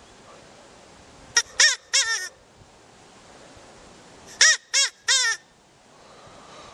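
Recorded rabbit calls: two bursts of three short, harsh calls, each call rising and then falling in pitch, with quiet gaps between the bursts.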